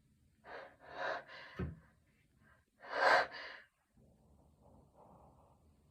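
Gasping in-breaths of a person about to sneeze: four quick catches of breath in the first two seconds, then a bigger gasp about three seconds in.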